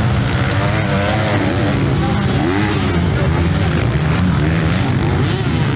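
Motocross motorcycle engines running on the track, revving up and falling back over and over as riders take the jumps, over a steady low drone from several bikes.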